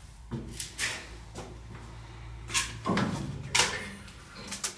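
A string of irregular sharp knocks and scuffs, about eight of them, the loudest about two and a half and three and a half seconds in, over a low steady background rumble.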